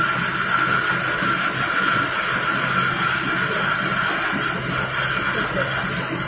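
CNC lathe machining a metal part: a steady hiss of the running spindle and cutting, with a steady high-pitched whine from the tool in the cut.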